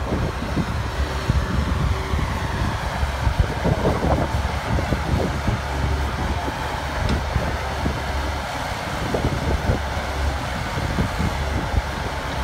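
Lorry engine running steadily with a low rumble, driving the hydraulics of a truck-mounted loader crane as its brick grab is worked, with wind buffeting the microphone.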